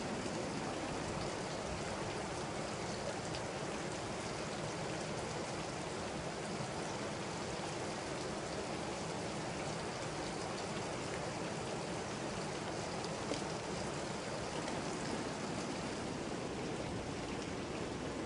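Swollen, muddy stream rushing along with rain falling on it: a steady wash of flowing water and rain.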